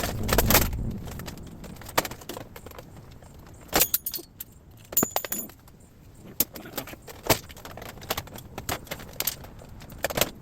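Scrap metal pieces clinking and clanking as they are handled, with a heavier thud at the start and a couple of brief ringing metal strikes around the middle.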